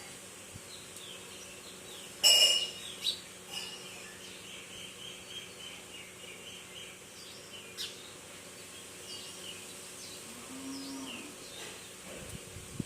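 Wild birds chirping and calling, many short high calls scattered throughout, with one louder, sharper call about two seconds in.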